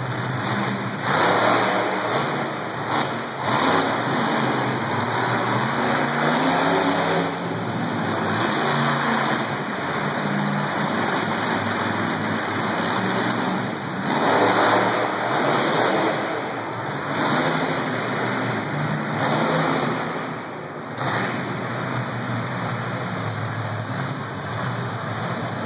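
Monster truck engine running and revving in repeated surges as the truck drives on the dirt.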